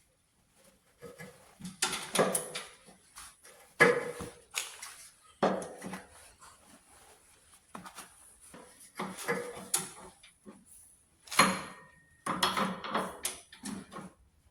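Metal tools and hardware clanking and clinking as they are handled, in an irregular series of knocks and rattles, with a few sharper clanks about four seconds in and near the end.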